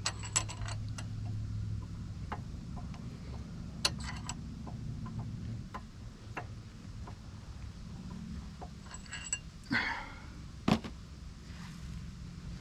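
Camshaft being walked by hand through the cam bearings of an LQ4 V8 block: scattered light metallic clicks and clinks as the lobes and journals catch on the bearings, with a sharper click near the end.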